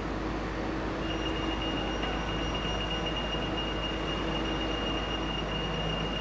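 Steady drone of vehicle engines running at a standstill, with a faint high-pitched whine that comes in about a second in and holds steady.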